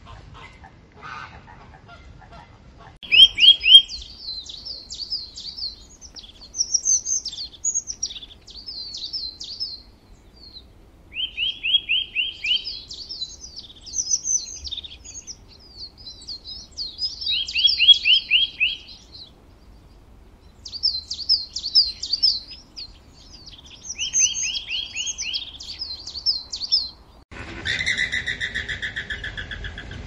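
A songbird singing in repeated phrases of quick, high chirping notes, each holding a fast lower trill, with short pauses between phrases. Near the end a different, buzzier sound takes over.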